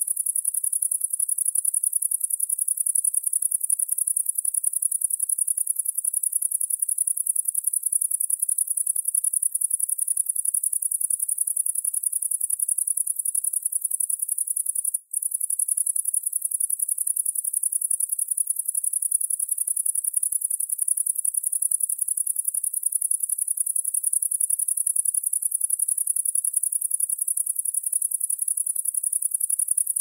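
Cricket chirping steadily in a very high-pitched, rapid unbroken trill, with a brief break about halfway through.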